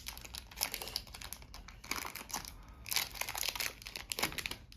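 Plastic packaging crinkling and rustling in the hands, in irregular bursts of crackles.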